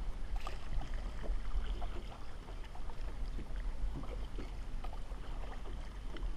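Kayak paddle strokes with water splashing and lapping against the kayak's hull in short, irregular splashes, over a steady low wind rumble on the microphone.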